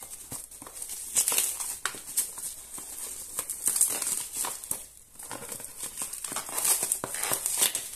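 Bubble wrap and plastic packaging crinkling and rustling as it is handled and pulled off a box, with irregular crackles that grow louder in several spells.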